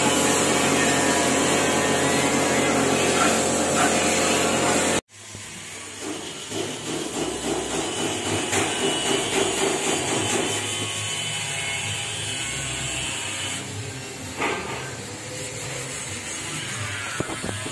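Compressed-air spray gun hissing steadily over the drone of a running air compressor as paint is sprayed; about five seconds in the sound cuts off abruptly to quieter, uneven background noise.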